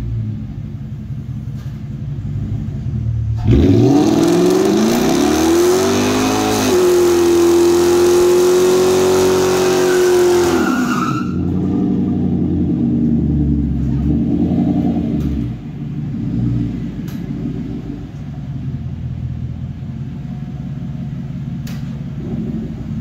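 Lincoln LS sedan's engine idling, then about three and a half seconds in revving up and held at high revs for about seven seconds as the rear tyres spin on wet concrete in a burnout. The revs then drop and it goes back to a rumbling idle.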